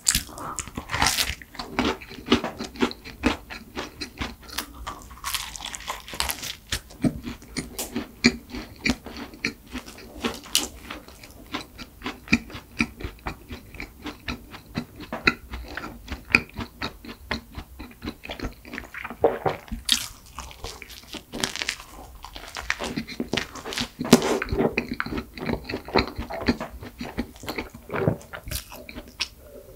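Close-miked chewing of a flaky cream-filled pastry: soft crunches and many small mouth clicks. Near the end come sips of milk.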